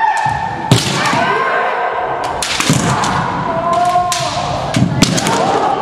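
Kendo practice: long drawn-out kiai shouts from several kendoka, broken by sharp cracks of bamboo shinai strikes and stamping feet on the wooden floor. The sharpest impacts come about 0.7 s in and again around 5 s.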